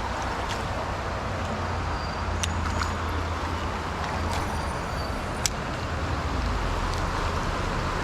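Steady rush of a flowing creek with wind rumble on the microphone, with a few sharp clicks along the way.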